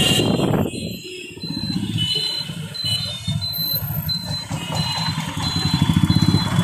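Motor scooter running in slow city traffic, a steady low engine drone, with a high electronic beep repeating about one and a half times a second. The sound dips briefly about a second in.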